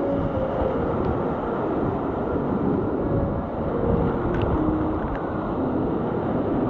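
Whitewater rapids rushing close around a kayak running them: a steady, dense roar of churning water.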